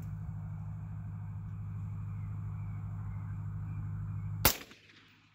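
A single suppressed shot from an AR-15 in .223 about four and a half seconds in: a sharp crack, still loud despite the suppressor, with a short echo trailing off. A steady low hum runs underneath until the shot.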